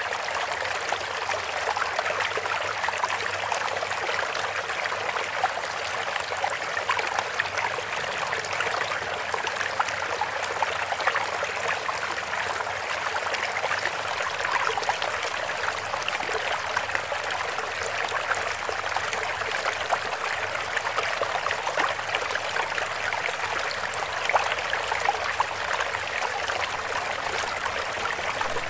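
Steady running water, like a flowing stream, with an even rush that sits high and has little bass.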